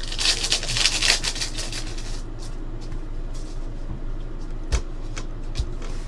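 Trading card packs being handled and opened: a rustle of pack wrapper in the first second, then light clicks of cards being sorted and two soft taps on the table near the end.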